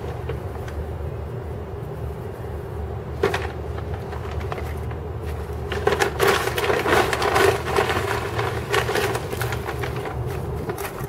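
Dry straw nesting material rustling and crackling as a hand works in the nest, loudest in a run of clicks and crackles in the middle, over a steady low hum.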